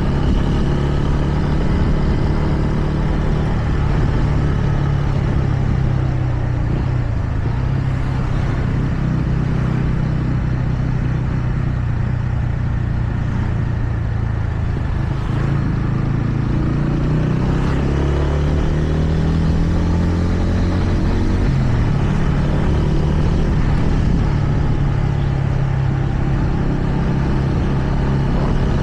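TVS Ronin's single-cylinder engine running steadily under the rider on the move. A little past halfway the engine note climbs as it revs up, then drops abruptly, as at a gear change, and settles back to a steady note.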